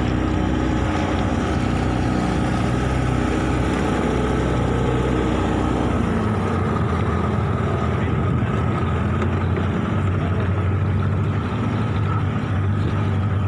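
Outboard motor of an inflatable rescue boat running steadily under way through floodwater; its low engine note shifts about six seconds in.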